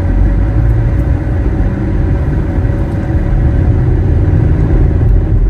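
Steady low rumble of a motor vehicle running.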